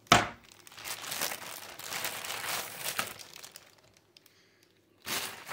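Clear plastic bag crinkling as it is pulled off an AIO liquid cooler, starting with a sharp crackle and dying away after about three and a half seconds, with another short rustle near the end.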